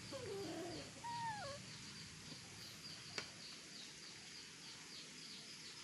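Two short wavering animal calls in the first second and a half, the second higher and falling away at its end. Behind them runs a fast, even, high chirping about four times a second, and there is a single sharp click about three seconds in.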